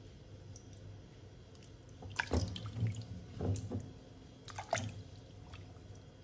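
Water splashing and dripping in a stainless steel basin as wet peeled taro pieces are lifted and turned by hand, with a few short splashes between about two and five seconds in.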